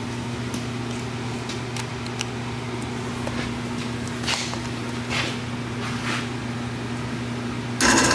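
Steady low electrical hum with a few light clicks and rustles as a table saw's power cord and motor wiring connectors are handled. Shortly before the end, a loud burst of noise cuts in.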